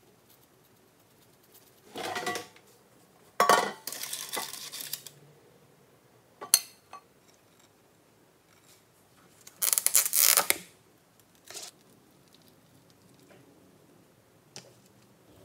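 Scattered kitchen handling noises in several short bursts: a spice shaker shaken over a plate, and ceramic dishes and a plastic takeaway container knocked and set down on a stone countertop. The loudest bursts come about three and a half seconds in and about ten seconds in.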